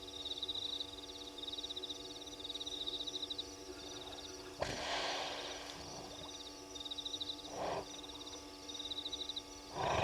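A night chorus of small calling creatures: rapid high-pitched pulsed trills, each lasting about a second, repeating with short gaps, over a low steady hum. A noisy rush breaks in about halfway through, with two shorter ones later.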